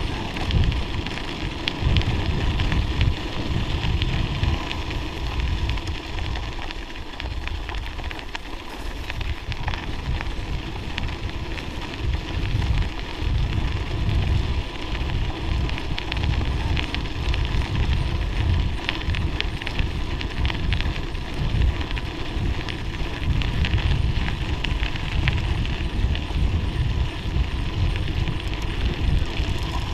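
Mountain bike tyres crackling over packed, icy snow on a downhill, with wind buffeting the microphone in a heavy low rumble.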